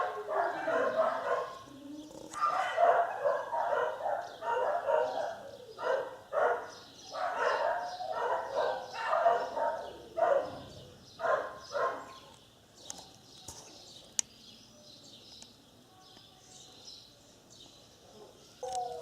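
Dogs barking in a dense, rapid series of barks for about twelve seconds, then only faint, scattered sounds.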